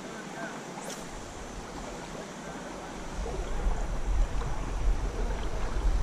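Running stream water, a steady rushing and rippling of the swollen current. About halfway through, a fluttering low rumble joins in and the sound gets louder.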